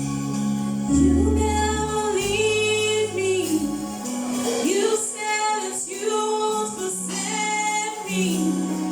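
Church choir singing a gospel song over organ accompaniment. Sustained organ chords are joined by the voices about a second in.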